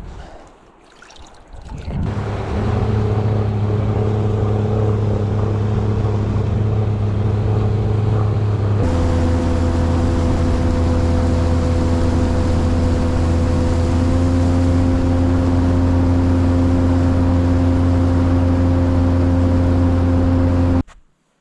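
Boat motor running steadily at constant speed, with a sudden change in its pitch about nine seconds in and an abrupt cutoff near the end.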